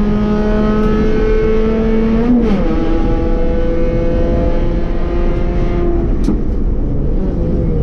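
B-Spec race car's engine at full throttle, climbing slowly in pitch, with a quick upshift about two and a half seconds in, then pulling on at a lower pitch and easing off near the end.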